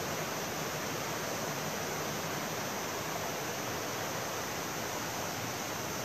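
Mountain stream rushing over rocks: a steady, even hiss of running water.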